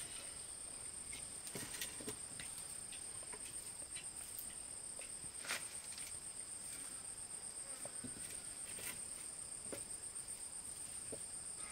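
Insects calling in a steady high-pitched drone, with a few scattered light clicks and knocks; one knock about five and a half seconds in is louder.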